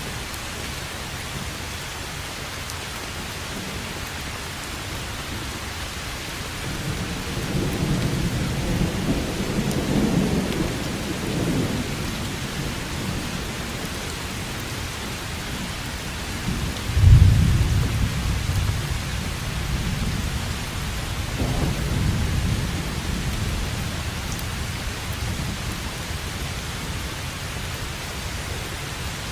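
Steady heavy rain with thunder: a low rumble builds and fades about a quarter of the way in, then a louder thunderclap a little past the middle rolls on for several seconds.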